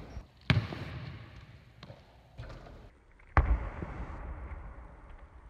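Two loud thuds on a hardwood gym floor, about three seconds apart, each echoing through the hall, with a few fainter knocks between and after.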